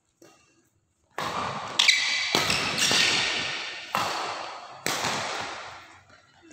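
Badminton rally: a quick run of about six sharp racket hits on the shuttlecock, starting about a second in, each ringing out with a long echo in the large hall.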